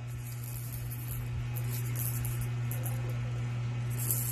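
Plastic baby rattle with small beads inside shaken in a few short bursts, the longest near the end, over a steady low hum.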